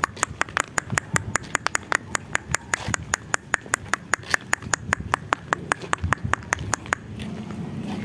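A rapid, even run of sharp clicks, about six a second, that stops about a second before the end.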